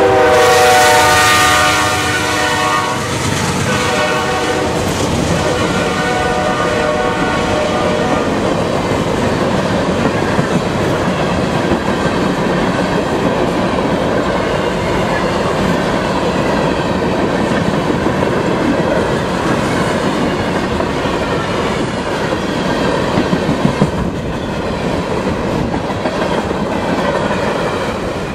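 CSX freight train passing close by: the locomotives' horn sounds as they go past and ends about three seconds in. Then a long string of tank cars rolls by with a steady rumble and clickety-clack of wheels over the rail joints.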